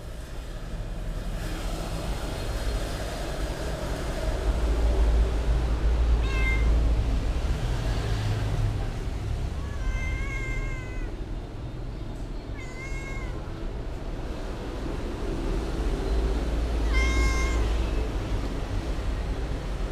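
A cat meowing four times, short high-pitched calls a few seconds apart, over a steady low rumble.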